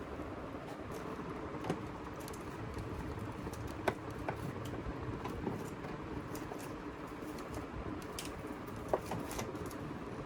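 Steady factory workshop noise with a few sharp clicks or knocks scattered through it, the loudest about four seconds in and another near the end.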